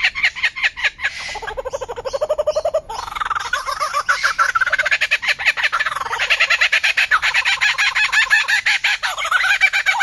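Lyrebird singing: a fast, unbroken run of short repeated notes, about eight a second, changing phrase every second or two. A lower-pitched run of notes comes about a second and a half in.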